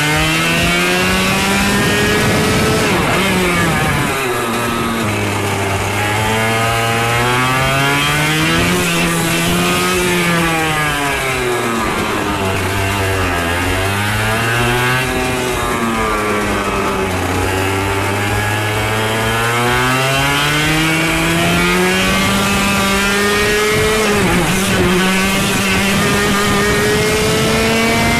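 Two-stroke racing kart engines at full throttle. The pitch climbs for several seconds, then drops sharply as the driver lifts off, again and again. At times two engines are heard at once.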